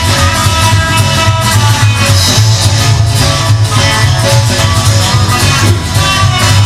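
Rock and roll instrumental music led by electric guitar over a steady bass and drum beat, with no singing.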